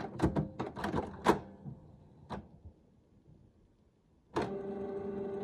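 A quick run of clicks and clacks from the Canon PIXMA MP250 inkjet printer, then about four seconds in a steady motor whine starts as the printer runs its preparing cycle after the error 5200 reset.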